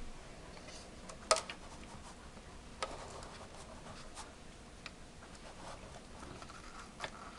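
A few scattered light clicks and taps over faint background hiss, the sharpest about a second in.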